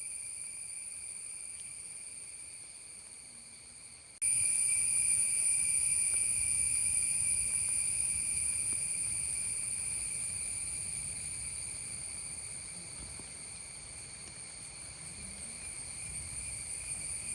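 Steady, high-pitched insect drone from the forest, without pause. It jumps abruptly louder about four seconds in, then slowly fades.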